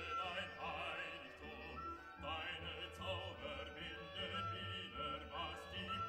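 Background music: a classical-style piece with a sung, wavering melody over sustained notes.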